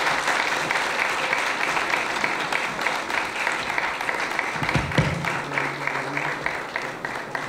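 A room of guests applauding, many hands clapping at once, tapering off near the end.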